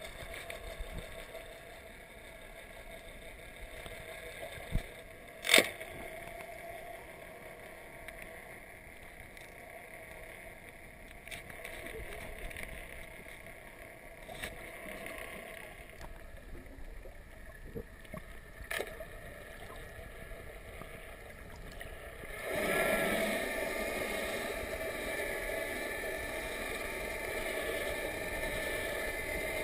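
Underwater sound through a submerged camera: a boat motor's hum with several steady tones, faint at first and growing louder about two-thirds of the way through, with a couple of sharp knocks earlier on.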